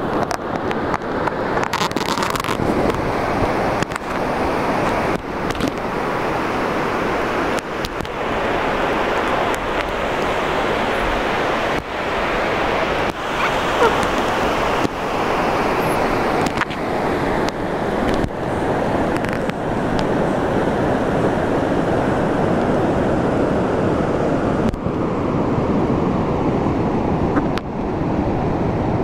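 Steady rushing noise of wind and the Indus River's flowing water, broken by many brief dips.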